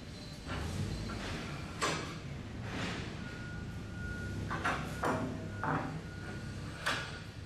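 Metal dock board on its roll-on wheel attachment being rolled and steered across a concrete floor by its handle. A low rumble runs under a series of about seven sharp metal clanks and knocks, the loudest about two seconds in and near the end.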